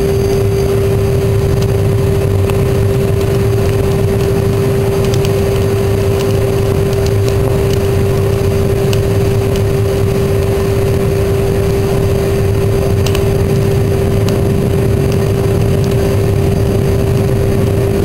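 Drum furnace burning garden waste under forced draught from a vacuum-cleaner blower: a steady low rumble of fire with one steady tone held throughout, and a few faint crackles.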